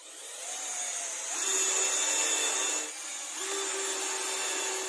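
Cordless drill running as it bores a pilot hole into the edge of laminated chipboard, with a steady motor whine. About three seconds in, the motor eases off briefly, then drills again.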